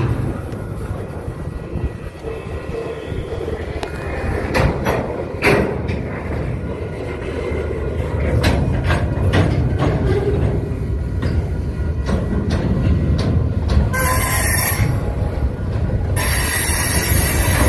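Freight cars rolling past at a grade crossing: a steady low rumble with irregular sharp clacks as the wheels cross rail joints. Near the end a high-pitched wheel squeal starts, first briefly and then continuing.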